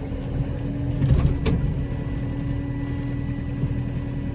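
Farm tractor engine running steadily under load, with a single sharp knock about a second and a half in.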